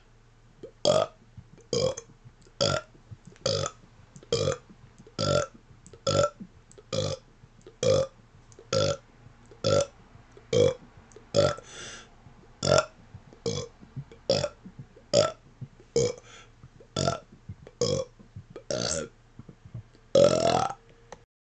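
A man burping rapid-fire: more than twenty short, deliberate burps at an even pace of about one a second, with a longer burp near the end.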